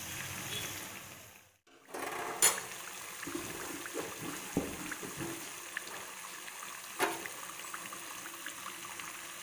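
Urad-dal batter fritters deep-frying in hot oil on a medium flame: a steady sizzle of bubbling oil. The sound cuts out briefly about a second and a half in, and there are a couple of light clicks.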